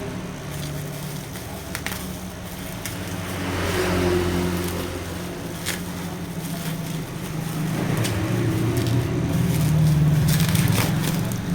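Crinkling and small clicks of packaging being handled, over a steady low rumble that swells twice.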